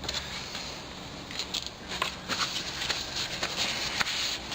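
Handling noise: a string of light, irregular scrapes, rustles and clicks as a camera is taken off its stand, growing busier about halfway through.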